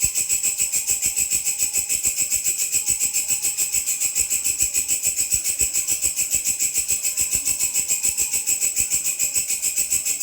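Belalang (grasshopper) stridulating: a continuous high-pitched chirring that pulses about seven times a second without a break.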